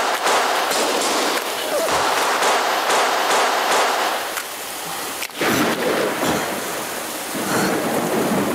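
Large house fire burning with a dense, steady crackle, and one sharp crack about five seconds in.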